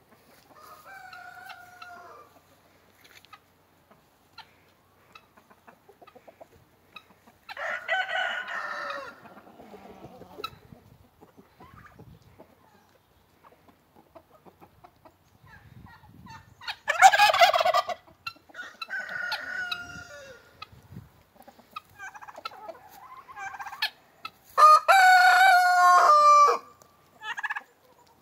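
Roosters crowing again and again, about six calls spread out with quiet gaps, some faint and some close and loud. The loudest and longest crow comes near the end.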